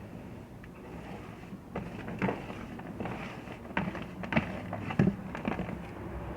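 Gym chalk crunching as it is crushed: a run of sharp, irregular crunches beginning about a second and a half in, the loudest about five seconds in.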